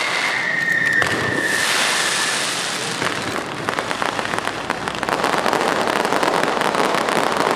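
Fireworks: a falling whistle fades out in the first two seconds, then dense, continuous crackling sets in from about three seconds in.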